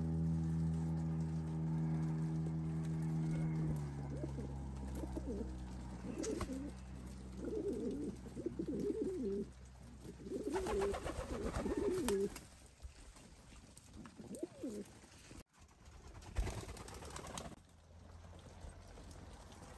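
Domestic pigeons cooing, a run of repeated wavering low coos from the feeding flock. For the first four seconds a steady low hum with even overtones sounds over them, then stops.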